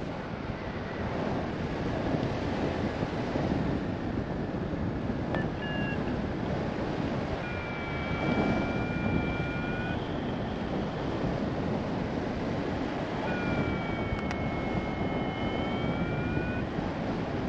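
Steady rush of airflow over the microphone of a paraglider pilot in flight. A thin high tone sounds a few times over it, held for two to three seconds around eight and fourteen seconds in.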